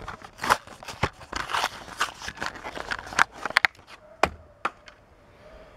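Plastic blister pack on a cardboard backing card crinkling and cracking as it is torn open by hand: a quick run of sharp crackles and clicks that stops about four and a half seconds in.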